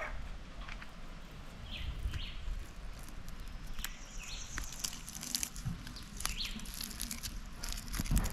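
Birds chirping now and then. From about halfway through, quick crackly scraping as the charred, blackened skin of a roasted breadfruit is peeled and scraped off by hand and knife.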